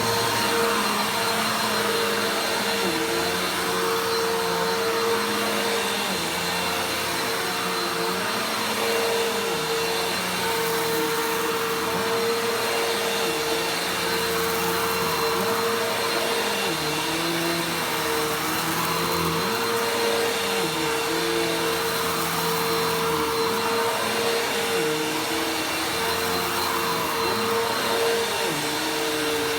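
Vacuum cleaner running steadily: a constant motor whine over the rush of air, with lower tones that rise and fall a little every few seconds as it is worked over the floor.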